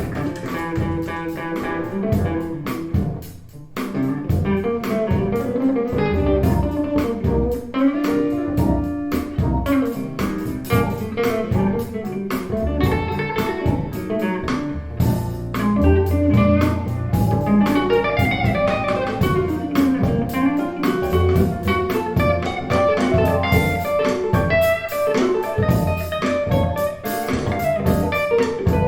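Guitar-led instrumental music with bass and a steady beat, played back through a pair of KEF LS50 bookshelf speakers in a furnished room. The music dips briefly about three seconds in.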